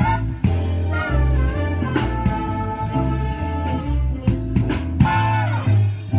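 Jazz big band playing: a walking upright bass line and drum kit under brass lines, with a louder horn phrase about five seconds in.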